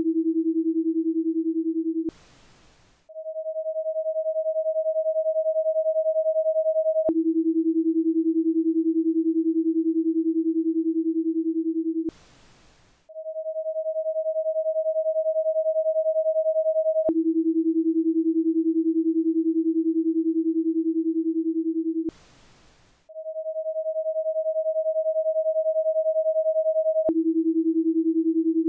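Electronic paced-breathing cue tones: a steady higher tone held for about four seconds to signal the inhale, then a steady lower tone for about five seconds for the exhale, then about a second of quiet as a breathing space. The cycle repeats every ten seconds, three times here.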